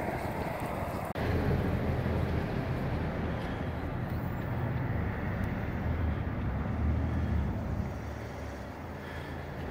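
Outdoor street ambience: a steady low vehicle rumble under a hiss of background noise, with an abrupt change in the background about a second in.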